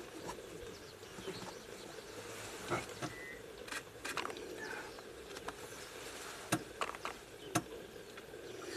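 Faint outdoor ambience: a steady hiss with scattered sharp ticks and clicks, and one short high chirp about three seconds in.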